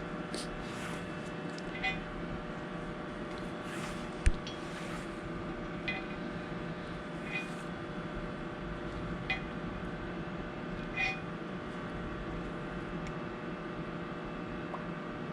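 A metalworking machine runs with a steady hum. Light metallic clicks come about every one and a half to two seconds, and there is one sharper knock about four seconds in.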